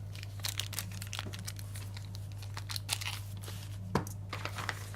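Hands handling small items, with irregular crinkling and clicking and a louder click about four seconds in, over a steady low electrical hum.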